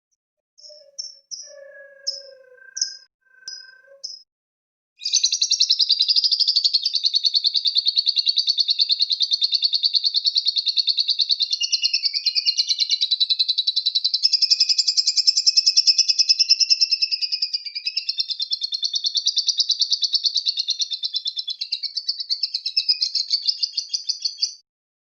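Lovebird singing its ngekek, the long unbroken chattering trill: a few short chirps, then about five seconds in a very rapid, continuous rattling trill that runs for about twenty seconds and stops shortly before the end.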